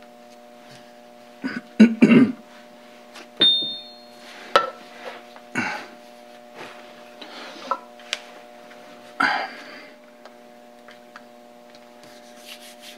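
Scattered knocks, clicks and scrapes of hands and an oil bottle working on the cast-iron body of a Brown & Sharpe dividing head while its oil holes are filled, over a steady hum. The loudest bursts come about two seconds in, and a brief high ring follows near three and a half seconds.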